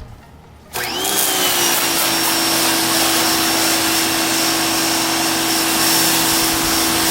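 Ryobi 1800 PSI electric pressure washer kicking on under a second in, its motor and pump coming up to speed at once and running with a steady hum over the hiss of the water spray.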